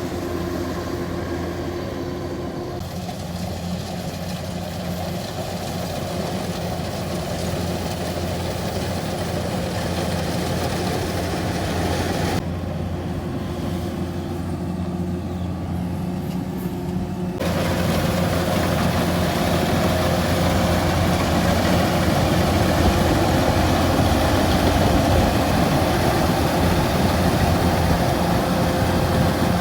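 A farm machine's diesel engine running steadily with a low hum. The sound shifts abruptly a few times and is louder from about two-thirds of the way in.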